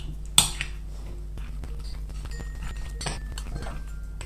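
Metal spoon stirring a thick mayonnaise-and-chicken filling in a glass mixing bowl, scraping and clinking against the glass. A sharp clink about half a second in and another about three seconds in, with lighter scrapes and faint glass rings between.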